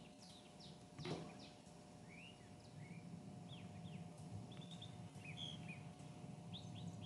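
Faint background bird chirps: a scatter of short, high, falling chirps, with one soft knock about a second in.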